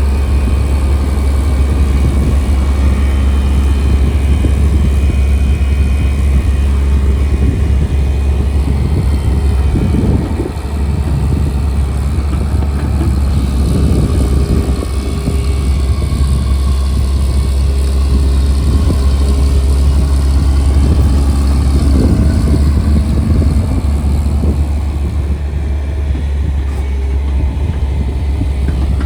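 A JCB earthmover's diesel engine runs steadily at work, with a few brief louder swells.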